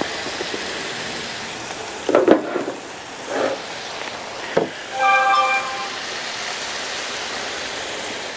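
Chicken strips sizzling in oil on a hot steel flat-top griddle: a steady frying hiss. A few brief knocks break in around two to four and a half seconds, and a short steady tone sounds about five seconds in.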